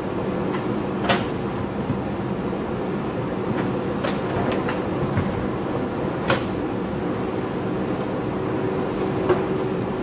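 JCB backhoe loader's diesel engine running steadily under hydraulic load as the backhoe bucket presses against a large boulder, with a few sharp clanks and knocks. The loudest knock is about a second in, another comes just past six seconds, and one more near nine seconds.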